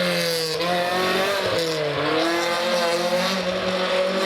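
Historic rally car engine revving hard on a special stage. Its pitch dips and climbs again twice, about half a second in and around two seconds, as it changes gear or lifts off.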